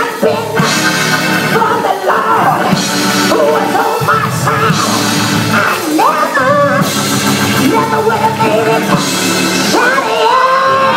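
A woman singing gospel loudly into a handheld microphone, her voice sliding through long runs, over a live band, amplified through a church PA.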